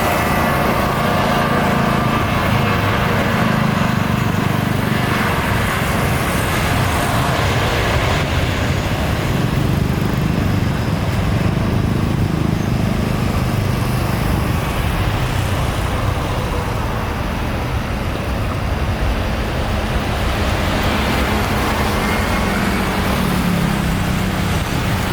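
Jet airliner engines running on the ground, a steady rumbling rush that holds at one level, with a faint high whine that fades near the start.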